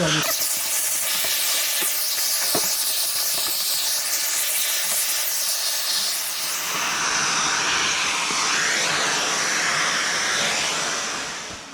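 Woodworking chip extractor (shop dust collector) running: a loud, steady rush of air with a harsh cutting noise, which the owner suspects comes from a worn motor bearing. The sound dies away near the end.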